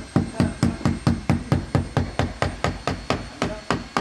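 A hammer tapping rapidly and evenly, about four sharp strikes a second, the kind of tapping used to drive a blade in and release a PVC window's glazing bead.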